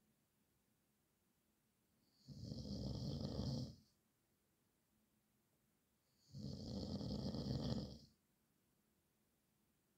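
A man snoring: two long snores about four seconds apart, with silence between them.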